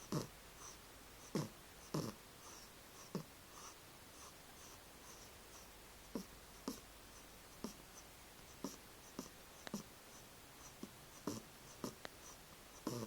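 A sleeping young cat snoring: short, irregular snorts and clicks in the nose, about one or two a second, each dropping in pitch.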